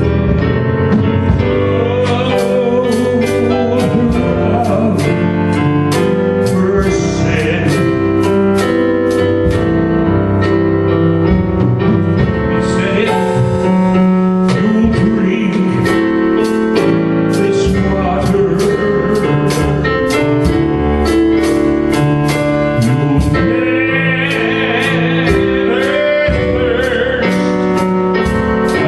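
Church worship music: keyboard or piano and band with a steady beat, with a singing voice.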